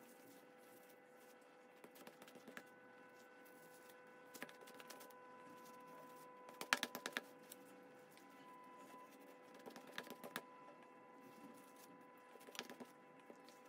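Light taps and clicks of a chef's knife blade and hands working scone dough on a wooden cutting board, in about five short clusters with the loudest about halfway through, over a faint steady hum.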